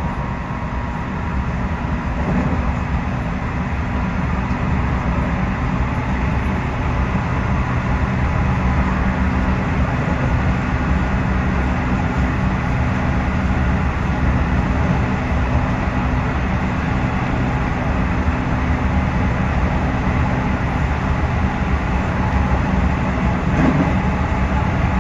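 Cabin running sound of a 311 series electric multiple unit under way: a steady rumble of wheels on rail with the hum of the traction motors. A faint steady tone fades out about nine seconds in.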